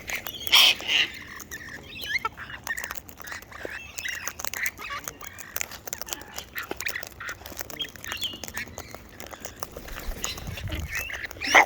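Wild birds feeding: many small clicks and taps of beaks working at food, with short chirps and squawky calls scattered through, one louder call about half a second in.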